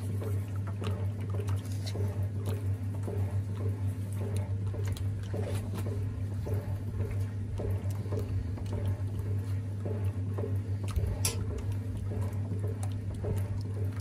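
1950s THOR washing machine running a wash: a steady low hum under the irregular sloshing and splashing of hot water and clothes churned by its agitator, with one sharper click about eleven seconds in.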